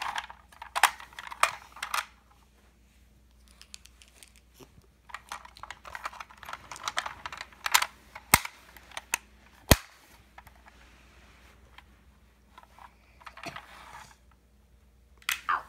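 Hard plastic toy ambulance and figure being handled: bursts of clicking and rattling, with two sharp single clicks a little after the middle and quiet pauses between.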